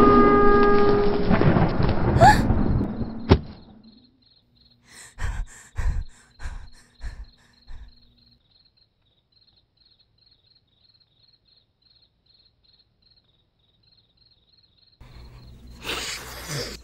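Background music fades out, then crickets chirp in a steady, evenly pulsing rhythm. About six dull thumps come in the middle, and a brief noisy rustle comes near the end.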